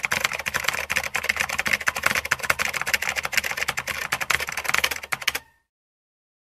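Rapid keyboard typing: a dense run of key clicks that stops abruptly about five and a half seconds in.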